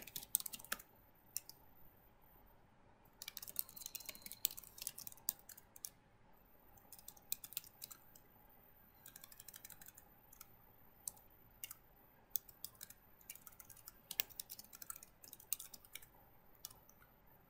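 Faint computer keyboard typing: quick runs of key clicks in several short bursts with pauses between them.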